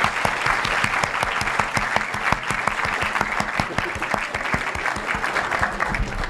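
Audience applauding: many hands clapping at once, fading out at the end.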